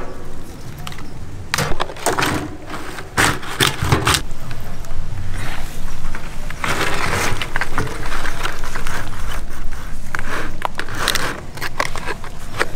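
Fresh green palm leaves rustling and crackling as they are handled and laid out on a metal tray, with irregular scrapes and sharp clicks.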